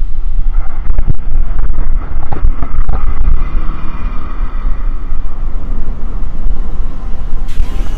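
Heavy wind buffeting on the microphone of a camera riding on a moving bicycle, with the engine and tyres of a cargo truck passing close alongside about halfway through.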